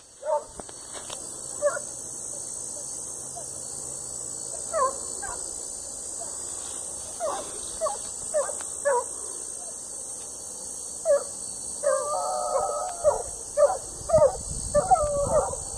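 Hunting dogs barking and yelping in scattered short calls, with a longer held cry about twelve seconds in: the pack giving tongue on the trail of a paca.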